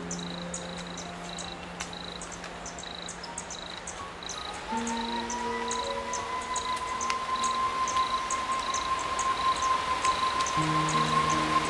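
Insects chirping in a steady, evenly repeating rhythm over soft ambient music of long held chords. About five seconds in, the chords change and a long high held note joins, and the music grows louder.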